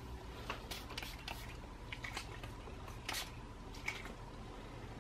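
Quiet room with a low steady hum and several faint, short rustling ticks, the small noises of handling a makeup bottle.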